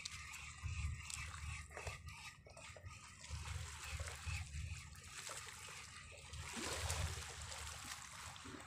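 Sea water splashing and lapping at the edge of a rocky shore.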